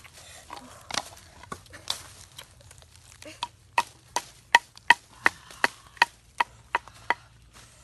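Wooden pestle pounding red chillies in a small bowl: a few scattered knocks at first, then about ten steady strikes, roughly three a second, in the second half, each with a short ring.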